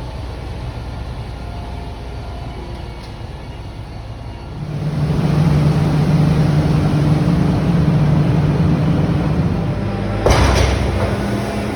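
Heavy engine of harvest machinery running steadily. It gets louder about halfway through with a stronger low hum, and there is a single sharp knock near the end.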